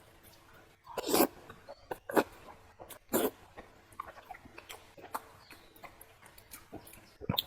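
Close-miked eating: wet chewing and mouth sounds from fatty pork belly and stewed pickled cabbage. There are several loud wet bursts, one about a second in, another at about two seconds, another at about three seconds and one near the end, with soft clicks between them.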